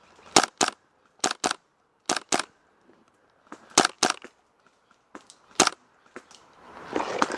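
Airsoft rifle firing in quick double taps: four pairs of sharp cracks, each pair about a quarter second apart, then a single shot. Near the end a rising rustle of movement comes in.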